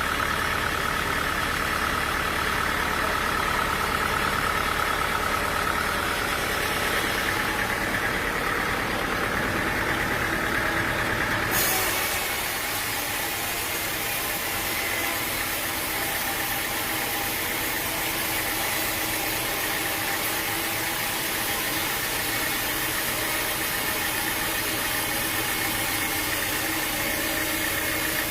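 Sawmill machinery running steadily with an engine-like drone; about a third of the way in, the sound changes abruptly to a thinner, hissier running noise.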